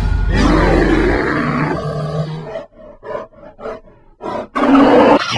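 Animal roar sound effect: a long, loud roar with a deep rumble underneath, then a run of short pulses about four a second. A second roar comes near the end and cuts off suddenly.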